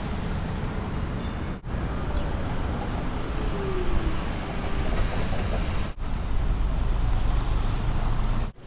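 Steady downtown traffic noise with a heavy low rumble, broken by abrupt cuts about a second and a half in, about six seconds in and near the end.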